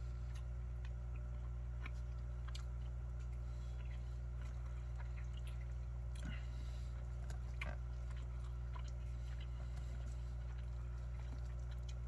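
A person chewing food, with faint wet clicks and mouth noises, over a steady low hum.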